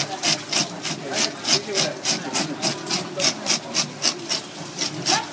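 Wooden-handled fish scaler scraping the scales off a large golden pomfret in fast, even strokes, about four a second, with a rasping, scratchy sound.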